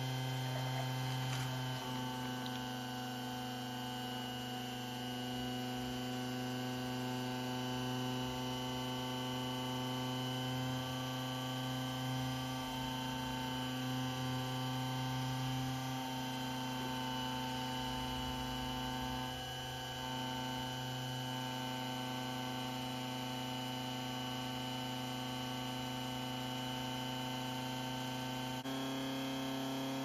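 Electric motor of a home-built magnetic heater, spinning a neodymium magnet disc under a copper pipe coil, running with a steady electrical hum; the hum steps up slightly in pitch near the end.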